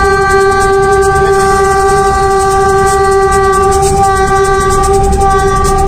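Diesel locomotive's horn, heard from the cab, held in one long, steady single-note blast. It is sounded as the train nears a level crossing. The locomotive's running rumble lies underneath.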